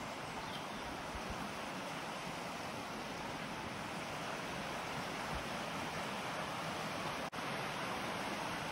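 Steady rushing of a fast mountain stream running over rocks, growing slightly louder, with a momentary break in the sound near the end.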